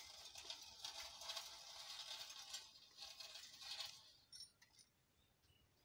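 Bicycle chain, sprockets and rear wheel spinning as the pedals are cranked by hand, giving a fast metallic rattle and ticking that dies away about four seconds in.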